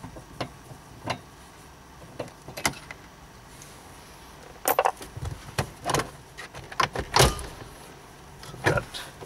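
Clicks and knocks of plastic dashboard trim being worked loose and pulled down under a Nissan Pathfinder's steering column. A few single clicks come first, then a busier cluster of knocks and rattles from about halfway, the loudest near the end.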